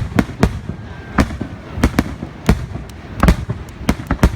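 Fireworks exploding: a rapid, irregular series of sharp bangs, about a dozen in four seconds, over a continuous low rumble.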